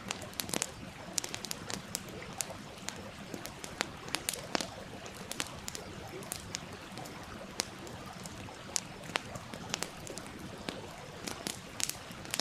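Wood fire crackling, with irregular sharp pops and snaps, over the steady rush and trickle of a stream.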